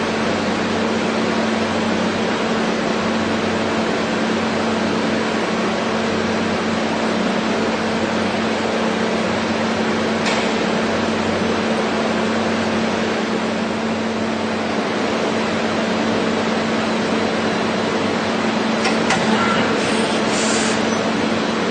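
CNC machine running steadily: a constant hum over a loud hiss, with a few short sharper sounds near the end.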